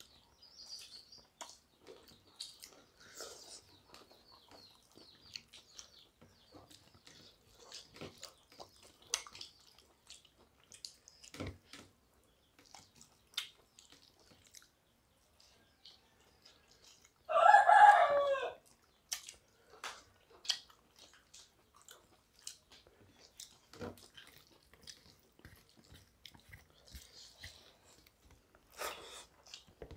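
Hand-eating sounds: rice and curry mixed and picked up by hand from steel plates, soft chewing and scattered small clicks. About 17 seconds in, one loud animal call lasts about a second.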